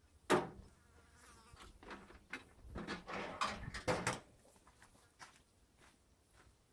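A sharp knock, then an insect buzzing close to the microphone for a couple of seconds, with a few light clicks.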